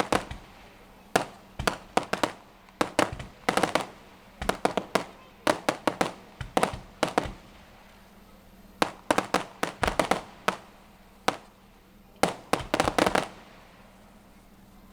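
Fireworks exploding in clusters of sharp bangs and quick crackles, with brief pauses between volleys.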